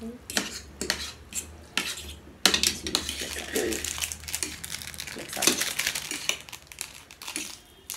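Metal forks and a spoon clinking and scraping against plates while mixing sauced instant ramen noodles, an irregular run of clicks and scrapes.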